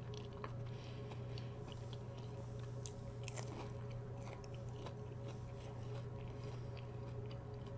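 Close-miked biting and chewing of a breaded chicken tender, with small crunches and wet mouth clicks that are thickest about halfway through, over a steady low hum.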